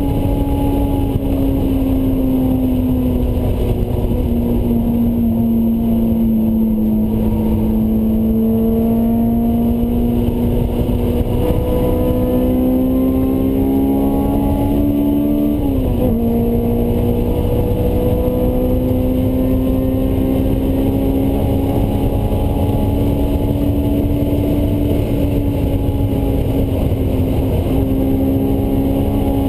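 Honda S2000's four-cylinder engine with a Mugen exhaust, heard from inside the cabin while lapping a race track. It runs at high revs, pitch climbing slowly under acceleration, with one quick drop in revs about halfway through as the driver changes gear, then climbing again, over steady road and wind noise.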